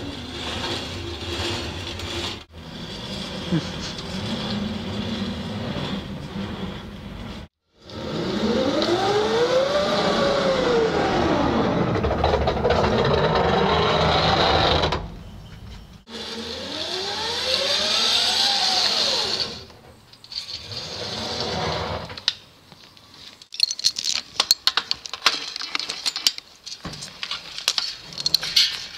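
Bicycle-driven tree house elevator: the chain, wheels and pulley whir as it is pedaled, the whir rising and then falling in pitch twice. Irregular clicking and rattling follow near the end.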